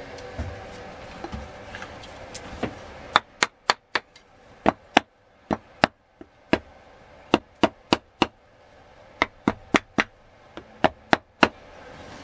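Wooden mallet knocking on a vintage steel axe head and its wooden handle. There are about twenty sharp knocks in uneven runs of two to five, starting about three seconds in.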